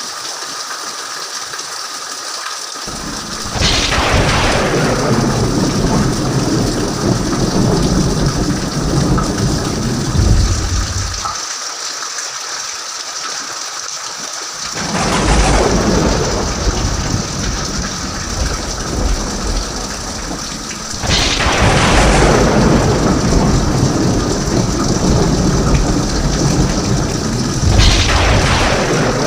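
Steady heavy rain with four rolls of thunder, about 3 s, 15 s, 21 s and 28 s in. Each opens sharply and rumbles on for several seconds.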